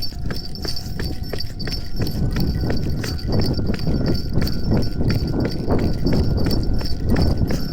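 Japanese level-crossing alarm ringing its repeated clanging tone while a local train passes over the crossing. A low rumble with a rhythmic clatter of wheels over the rail joints builds from about two seconds in.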